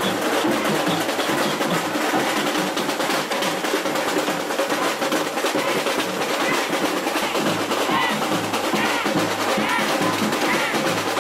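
Samba bateria drumming a steady, busy groove: snare drums (caixas) rattling over the beat of surdo bass drums.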